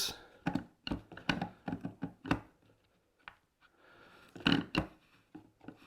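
Plastic parts of a Black & Decker corded string trimmer's head clicking and knocking as the gear housing, spool and cover are fitted back into place: a string of sharp clicks in the first couple of seconds, then a small cluster of knocks near the end.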